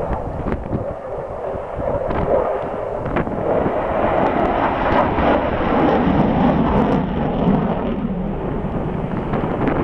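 Jet noise from a Su-27 fighter's twin AL-31F afterburning turbofans as it flies a display pass: a steady rumbling that swells and deepens about three seconds in and stays loud.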